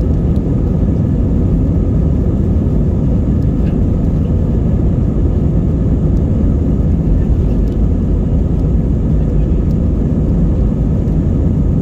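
Steady low rumble inside the cabin of an Airbus A320-232 rolling along the runway. Engine and rolling noise blend into one even sound that neither rises nor falls.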